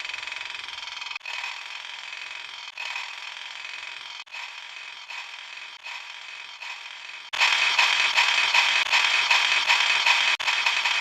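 A short character sound clip looped and stacked many times over in an edit, making a dense, rapidly repeating texture. It restarts with a brief break about every second and a half and jumps much louder about seven seconds in.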